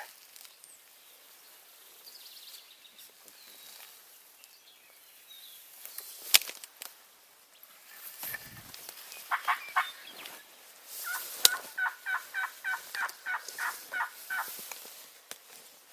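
Wild turkey calls: a short rapid rattle of notes about nine seconds in, then a long run of evenly spaced yelps, about four a second, lasting some three and a half seconds. Two sharp clicks, the loudest sounds, come about six seconds in and just as the yelp run begins.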